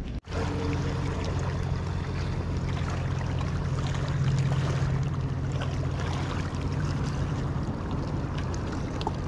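Sea water lapping and splashing against shoreline rocks, over a steady low rumble.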